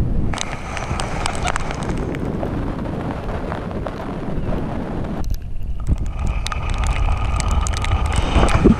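Strong wind buffeting the action camera's microphone while kitesurfing in choppy sea, with water splashing and spray crackling against the mic. The high sounds drop out briefly a little over five seconds in.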